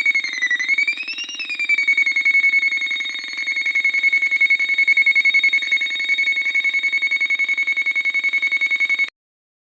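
Homemade electronic siren built on a K155LA3 (7400-type TTL NAND) chip, running on a low supply voltage and sounding through a small speaker. It gives a shrill warbling tone that rises and falls twice, then settles on one steady pitch and cuts off suddenly near the end.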